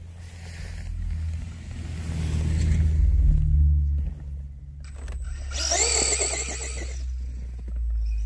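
Traxxas Bandit RC buggy's brushless electric motor whining as it speeds up, loudest around six seconds in, over a low rumble.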